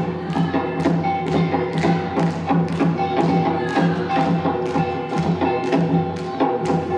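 Korean traditional music accompanying the jinsoe dance: sharp percussion strikes at a quick, even beat, about three a second, over held melodic tones.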